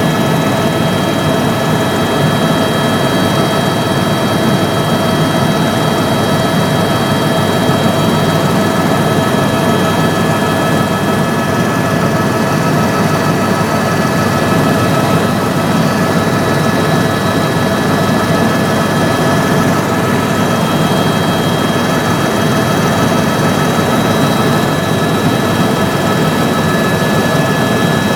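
Helicopter turbine and rotor running steadily in flight, heard from inside the cabin: a constant rushing drone with a steady high whine over it.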